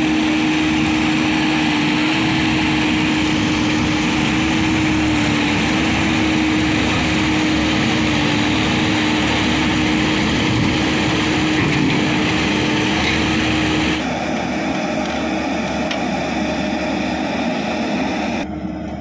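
Diesel engines of a Case 770 backhoe loader digging and a John Deere tractor, running steadily with a constant hum. The sound drops in level and changes about two-thirds of the way through.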